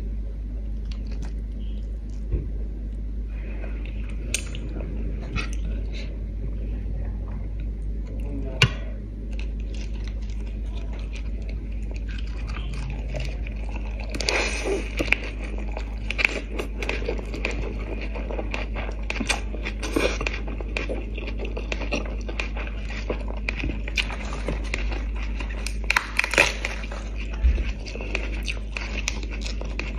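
Close-up eating sounds: crisp lettuce wraps of rice noodles and fish being handled, then bitten into and chewed, with crunching and wet mouth smacks that get busier about halfway through. A steady low hum runs underneath.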